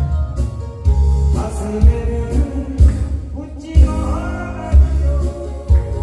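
A man singing into a microphone, amplified through loudspeakers, over a backing track with a steady bass drum beat about once a second.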